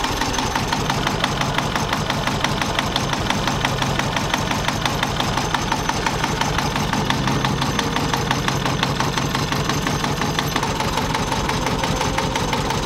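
Sailboat's inboard engine running steadily with a fast, even knock of its firing. It sits on broken engine mounts, propped up with tensioned ropes and an old anchor-winch motor.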